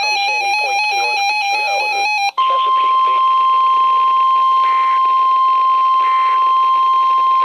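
Weather radio alert tones: a buzzy electronic alarm warbling between two pitches for about two seconds, a brief break, then the steady single-pitch NOAA Weather Radio 1050 Hz warning tone.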